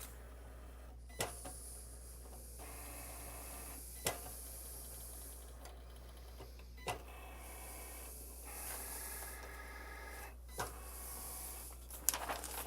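Cricut cutting machine scoring paper with its stylus: its motors whir in short runs as the carriage moves, with a few sharp clicks in between.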